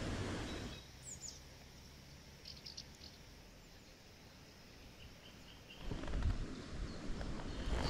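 Faint songbird chirps and short calls, one falling chirp about a second in and a few quick high notes later, over quiet riverside ambience. A rustling noise fades out near the start and comes back louder about six seconds in.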